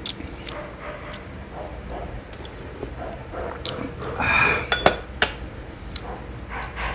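Eating sounds at a table: light clinks of glass dishes and a spoon, with wet slurping. About four seconds in comes a brief louder noise, followed by a couple of sharp clicks.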